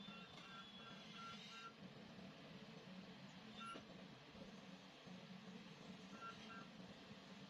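Faint, steady hum of a Volvo excavator's diesel engine idling, with short electronic beeps: a quick run of about five or six in the first two seconds, one near the middle, and two more near the end.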